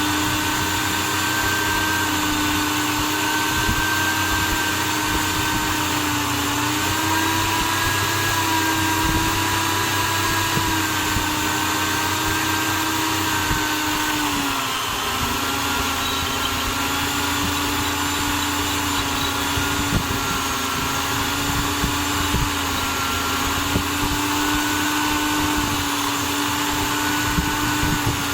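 Electric drill motor running steadily, with a brief dip in pitch about halfway through.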